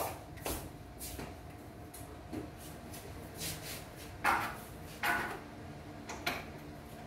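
Scattered knocks and clatters, about six over the few seconds, the loudest two about four and five seconds in, over a faint steady hum.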